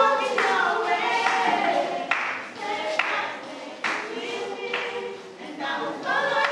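A youth choir of children and teenagers singing together in phrases.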